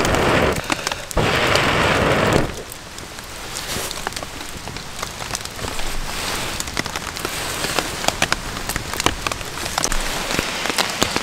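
Two long breaths blown onto a small ember fire held in a bowl, one at the start and one from about one to two and a half seconds in. Then steady rain pattering, with scattered sharp ticks.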